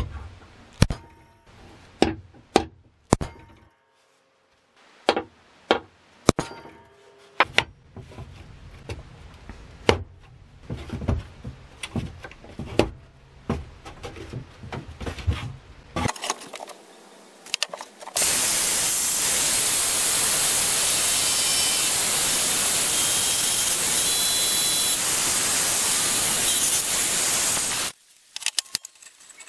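A hammer strikes a punch on a steel saw-blade knife blank, about five sharp metallic taps, marking hole positions. After some knocks and clatter of handling, a bench drill press with a step drill bit runs for about ten seconds with a loud steady hiss as it bores through the steel, stopping suddenly near the end.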